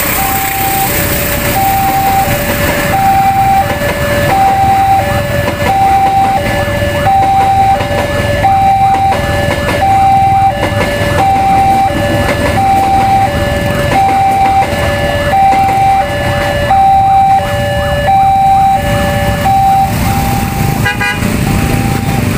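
Level-crossing warning alarm sounding a repeating two-tone high-low chime, about one pair a second, over the rumble of a passing train. The alarm stops about 20 seconds in, followed by a brief burst of rapid clicks.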